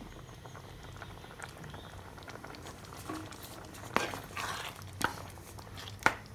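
Thick yam curry simmering quietly in a pan, then a wooden spatula stirring it, knocking against the pan three times from about four seconds in.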